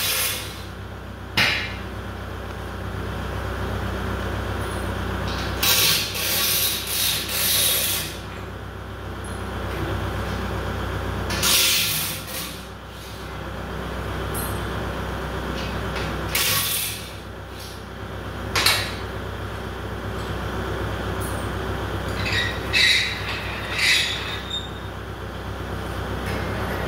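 Steady low engine hum under short bursts of a cordless impact wrench rattling and metal clanking, as engine blocks are unbolted from engine stands and set into a tractor's loader bucket. The louder tool bursts come in clusters of about one to two seconds.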